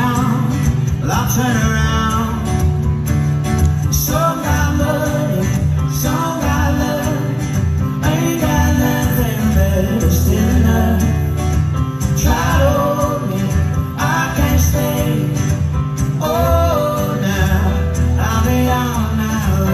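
A folk band playing live: strummed acoustic guitar and banjo over keyboard, bass and drums, with a steady beat and a melody line on top.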